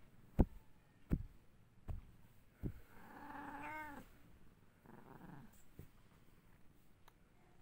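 A cat's paws and body bumping against the camera in a few low thuds, the loudest about half a second in, then one meow of about a second, about three seconds in, its pitch bending down at the end, with a fainter call a second later.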